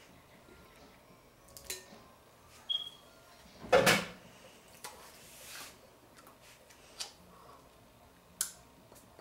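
Kitchen handling noises: a few light clicks and knocks, with one louder thump and clatter about four seconds in.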